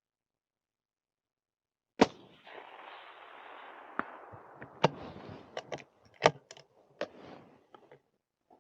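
A suppressed .223 Remington 700 bolt-action rifle fires once about two seconds in, followed by a lingering rush of noise. Several sharper, quieter clicks and clacks follow over the next few seconds.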